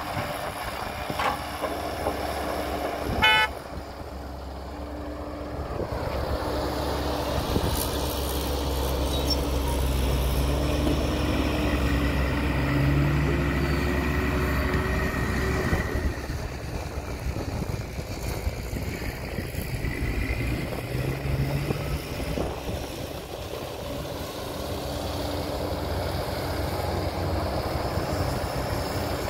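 Heavy diesel machinery running, an excavator and dump truck at work, the engine note rising and falling as it is worked. A short, loud horn toot sounds about three seconds in.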